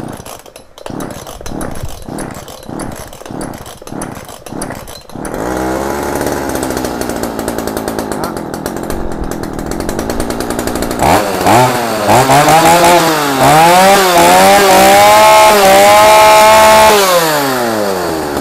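Shindaiwa 345 two-stroke chainsaw being pull-started: a run of quick cord pulls, then the engine catches about five seconds in and idles. From about halfway it is revved up and down a few times, held at full throttle for a few seconds with a smooth note, then let back down to idle near the end.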